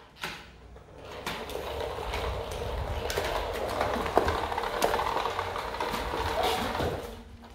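Plastic wheels of a three-wheeled children's kick scooter rolling over a tiled floor: a steady rattling hiss with small clicks that builds up about a second in and dies away shortly before the end.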